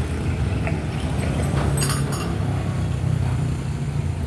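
Steady low rumble, with a few light clinks about halfway through.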